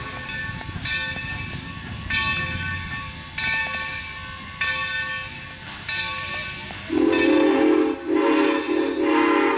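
A train with its bell ringing about once a second over a low rumble, then its horn sounding three loud blasts starting about seven seconds in.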